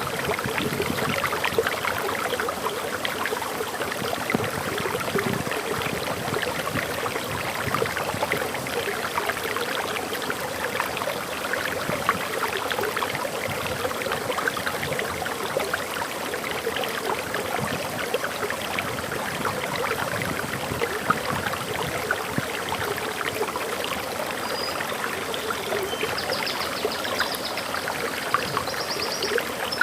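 Small forest waterfall: water pouring and splashing steadily, a dense rush full of small splashes. Near the end, a bird chirps faintly in quick, short high notes over the water.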